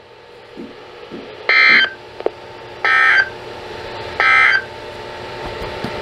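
Midland weather radio's speaker sounding three short, harsh digital data bursts about 1.3 s apart: the EAS/SAME end-of-message code that closes a relayed severe thunderstorm warning.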